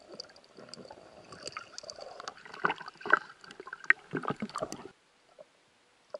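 Water gurgling and splashing around a swimming spearfisher, mixed with many sharp knocks. It stops abruptly about five seconds in, and one short click follows near the end.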